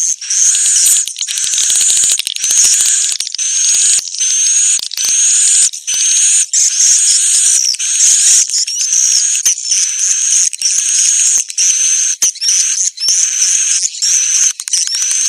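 A recorded bird lure call: a dense, unbroken run of short, high-pitched chirps and sweeping whistled notes, repeated over and over. It has been cleaned of noise and sounds thin, with no low end.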